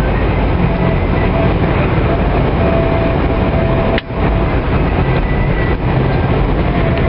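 Steady engine and road noise inside a vehicle's cab while driving along a highway. There is a brief drop-out about four seconds in, where the recording cuts.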